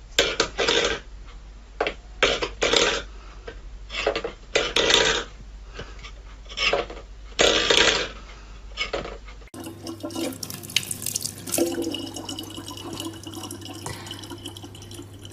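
Water splashing in irregular bursts, as in a sink. After a cut, quieter, steadier running water with a low hum.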